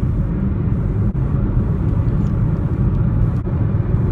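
Steady low road and engine rumble heard inside a moving car's cabin.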